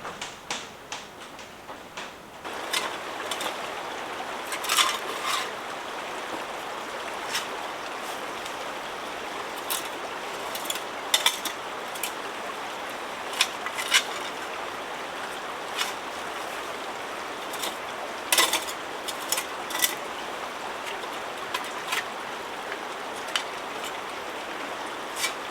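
Sharp metallic clinks and scrapes every second or two, from a metal ash bucket being handled. About two and a half seconds in, a steady rush of water comes up and stays under them.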